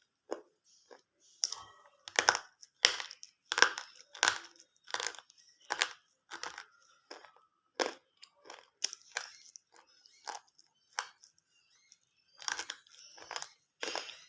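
Cock brand slate pencils crunched and chewed between the teeth close to the microphone: a run of sharp crunches, about one or two a second, loudest in the first half and again near the end.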